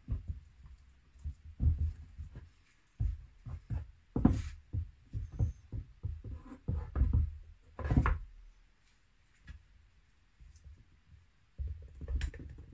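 Bar clamps and a small wooden box part knocking and clunking on a wooden workbench as the part is clamped up. The knocks are irregular and low, with a few sharper clicks.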